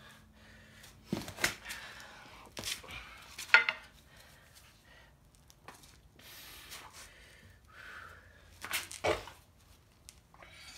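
Metal engine parts being handled: scattered clinks and knocks of metal on metal, the sharpest about three and a half seconds in, with quiet stretches between.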